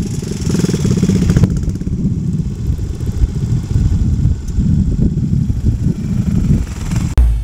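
Motorcycle engines running at low revs, a low, pulsing exhaust note that rises and falls a little. Rock music with a heavy beat cuts in at the very end.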